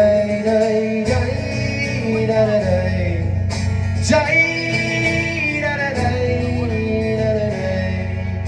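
Acoustic guitar strummed through a live PA, with a man singing long held notes without clear words over it.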